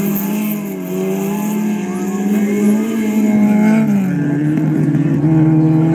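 Rallycross car engine running hard on a dirt track, its pitch dipping and climbing with the throttle, then dropping about four seconds in and holding lower.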